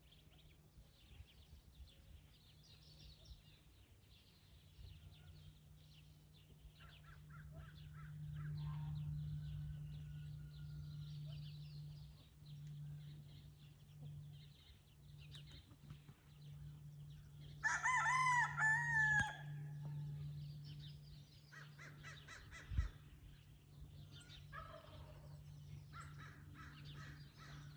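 A rooster crows once, loudly, about 18 seconds in, among scattered short high calls and clucks of farmyard fowl. A steady low hum runs underneath.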